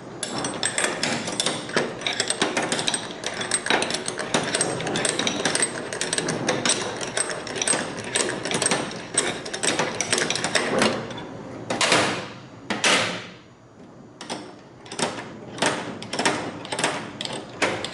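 Steel open end of a Drive-on combination wrench worked back and forth on a nut, clicking rapidly as the jaw slips back over the nut's corners on each short stroke. About two-thirds through come two longer scraping sweeps, then the clicks slow to one about every half second.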